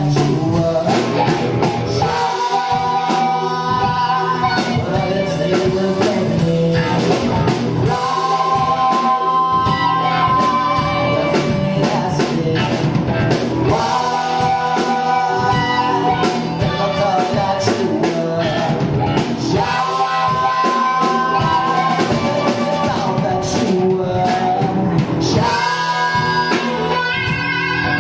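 Live soul-funk band: a woman singing lead over electric guitar, bass guitar and drums, her phrases ending in long held notes about every six seconds.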